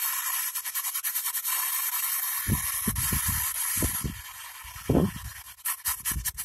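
P-SB7 spirit box sweeping through radio frequencies: a steady white-noise hiss broken by rapid clicks as it scans. From about halfway in it lets through short chopped fragments of radio sound.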